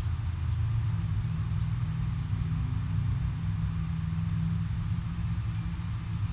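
A steady low rumble of outdoor background noise, with two faint ticks in the first two seconds.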